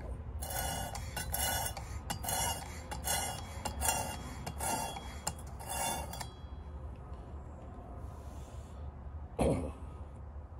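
Work Sharp guided sharpener's 320-grit stone rasping along a knife edge in about a dozen quick strokes, roughly two a second, stopping about six seconds in. These are trial passes to check the bevel angle.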